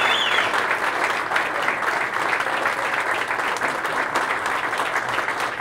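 A roomful of men applauding steadily, with a brief high whistle at the very start.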